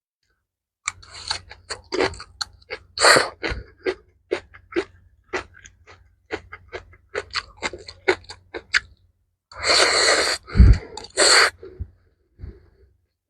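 Close-miked eating sounds: chewing and crunching mouthfuls of mixed rice with pickled mustard greens, a run of short crisp clicks and smacks with a few longer, louder bursts about three seconds in and again around ten to eleven seconds in.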